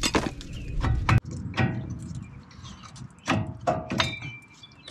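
Several sharp metallic knocks and clanks, some ringing briefly, as the 2006 Ford F-250's front brake caliper is worked loose from the rotor. The caliper was stuck and needed force to come off.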